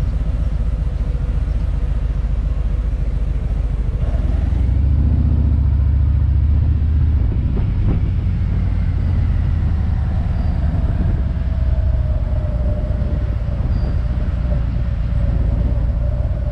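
Motorcycle engine with a low, pulsing rumble, ticking over at first, then louder as the bike pulls away about four to five seconds in and rolls on at low speed.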